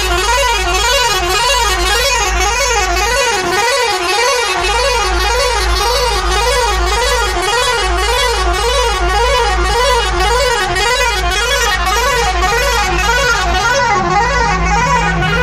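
Bus horn sounding one continuous warbling tone that rises and falls about twice a second, over the bus's low, steady engine and road rumble.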